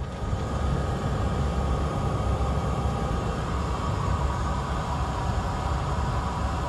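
Cabin sound of a Cessna 208 Caravan rolling along the runway. Its single Pratt & Whitney PT6A turboprop engine and propeller give a steady drone with a constant whine, over a low rumble and hiss.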